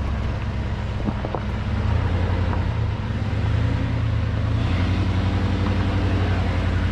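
A 4x4 vehicle's engine running steadily while driving on an off-road dirt trail, its note picking up a little about two seconds in. A couple of light knocks come about a second in.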